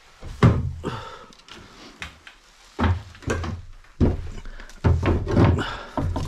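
About eight uneven, heavy thumps and knocks from parts of a bus interior being pried off and pressed back into place.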